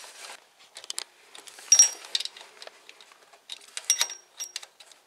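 Ratchet wrench clicking in several short quick runs as the water pump bolts are tightened a little at a time in a crosswise pattern.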